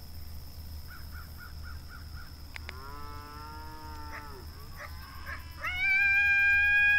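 Drawn-out howls of the kind used in coyote hunting. A few short chirps come first, then a lower howl about three seconds in that droops as it ends. Near the end comes a much louder, higher howl, held steady.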